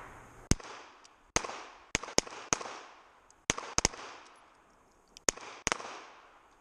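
Revolver shots on a field-shooting range: about ten sharp cracks at irregular spacing, each with a trailing echo, from the shooter's Colt Python and other revolvers on the firing line during a timed string of fire.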